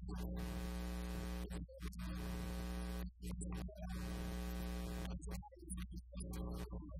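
Steady electrical mains hum under a buzzing, garbled tone that comes and goes in phrase-length stretches, breaking off about every one to two seconds. It follows the rhythm of the preacher's speech, but no words can be made out: an audio fault on the sound feed.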